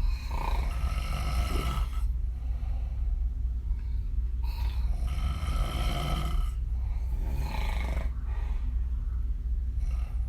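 A woman snoring through an open mouth, her lips blowing and fluttering on the breath. There are two long snores, the second about four and a half seconds after the first, then a fainter breath, all over a steady low hum.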